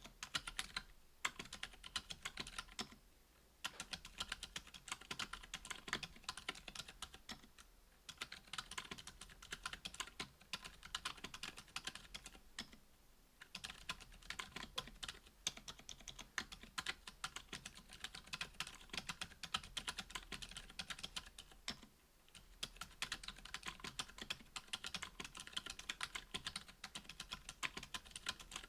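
Continuous fast typing on a Duck Orion V2.5 mechanical keyboard with stock, unlubed Gazzew U4 Boba 62g silent tactile switches on an FR-4 plate under GMK keycaps: a dense run of soft, muted keystroke clicks, broken by brief pauses a few times.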